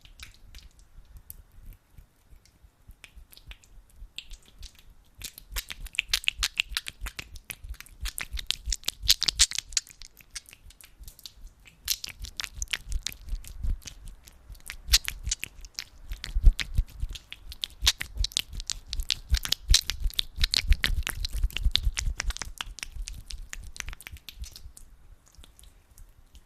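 Hands rubbing and squeezing sticky aloe vera gel close to the microphone: a dense run of quick sticky clicks and crackles. It builds up a few seconds in, eases briefly near the middle and fades out near the end.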